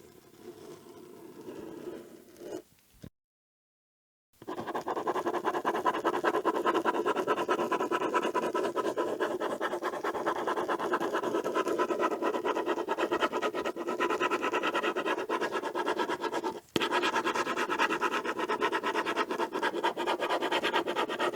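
Ballpoint pen scribbling rapidly on paper, a dense run of quick scratching strokes. It begins after a quieter stretch and a second of silence a few seconds in, breaks off for a moment about two-thirds of the way through, and resumes.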